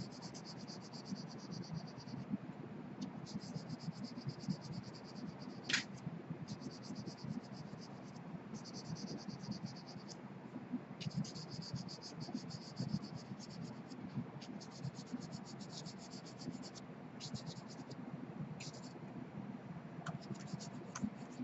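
Charcoal pencil scratching across drawing paper in rapid short shading strokes, coming in runs of a few seconds with brief pauses. One sharper tick about six seconds in.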